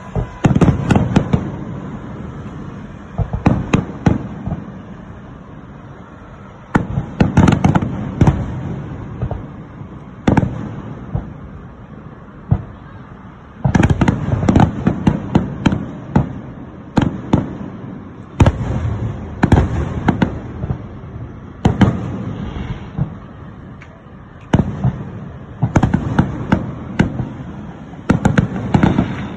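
Aerial fireworks bursting in volleys of sharp bangs and crackles, each volley followed by a rumbling echo that dies away before the next.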